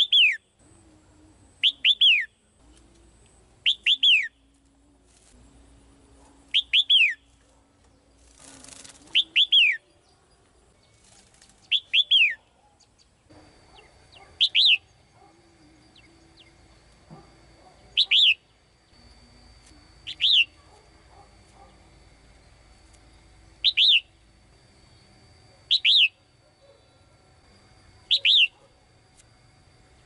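Caged female red-whiskered bulbul calling: a short, sharply falling double note, repeated about a dozen times at roughly two-second intervals. A brief rustle, like wing-flutter, comes about nine seconds in.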